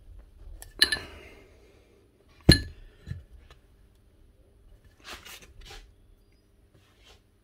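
Small metal parts and tools clinking and knocking against each other: a couple of light ringing clinks about a second in, one sharper ringing knock at about two and a half seconds, then a softer rustle near five seconds.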